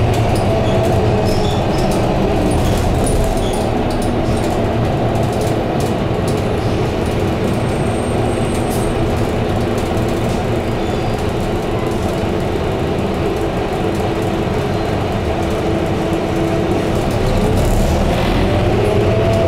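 Interior of a Scania K230UB double-decker bus heard from the upper deck: its nine-litre five-cylinder diesel and drivetrain running steadily under road rumble, with scattered rattles from the cabin. A whine rises in pitch near the end as the noise grows louder.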